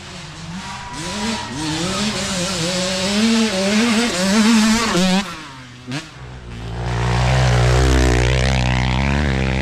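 Dirt bike engine revving up and down under throttle for about five seconds. Near the six-second mark it drops off briefly with a sharp click, then settles into a loud, steady, deep engine drone.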